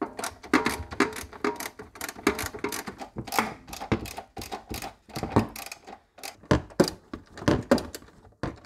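Socket ratchet clicking in quick, irregular runs as the 10 mm bolts of a car's underbody oil filter cover plate are worked loose.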